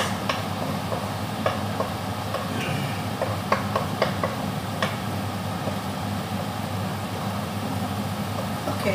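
Garlic and onion sizzling in a wok as a wooden spatula stirs and scrapes them, with sharp knocks of the spatula against the pan, most of them in the first five seconds. A steady low hum runs underneath.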